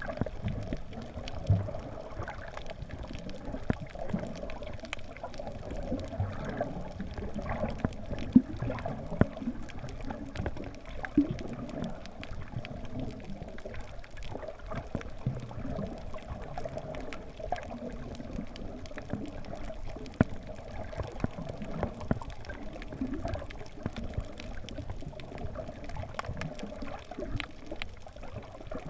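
Muffled, uneven rushing noise with a steady hum and scattered crackles and knocks: a quadcopter's motors, propellers and air rush heard through a GoPro's housing in flight.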